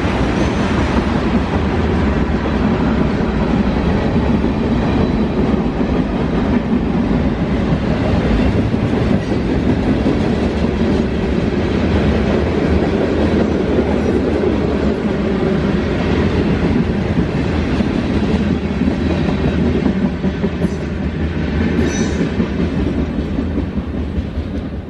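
Railroad freight cars rolling steadily past, the wheels clacking over the rail joints, with a few faint wheel squeals near the end as the sound begins to ease.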